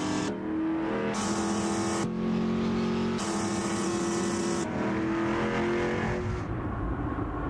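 Race car engines running at high revs in a steady drone, the pitch jumping abruptly to a new level every second or so.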